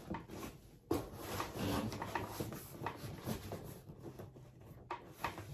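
Handling noises: rustling and rubbing with a few light knocks as kit items are moved about, with a sharper knock about a second in.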